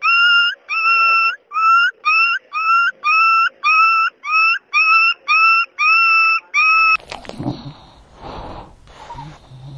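A dog giving a rapid series of high-pitched yelping cries, about two a second, each held at a steady pitch. The cries stop abruptly about seven seconds in, followed by rough, scuffling noise.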